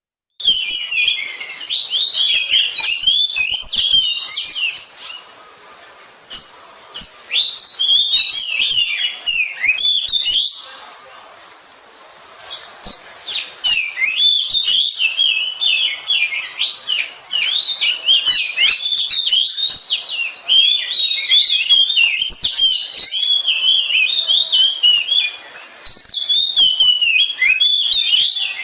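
Oriental magpie-robin (kacer) singing a rapid, varied stream of chirps and whistled phrases, with short pauses about five seconds in and again around eleven to twelve seconds in.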